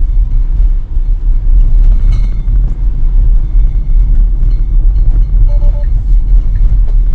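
Steady low rumble of tyre and road noise inside a Tesla electric car's cabin as it drives on a wet road.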